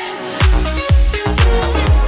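Background music: an electronic dance track whose steady kick-drum beat comes back in about half a second in, about two beats a second, under sustained synth chords.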